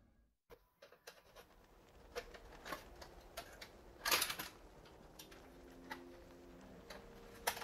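Hard plastic parts of a Bandai space pod model kit being handled and pried apart: scattered small clicks and taps. The loudest is a short cluster of clicks about four seconds in, and there is a sharp click near the end.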